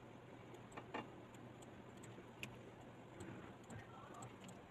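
Near silence with a low hum, broken by a few faint clicks of computer keyboard keys.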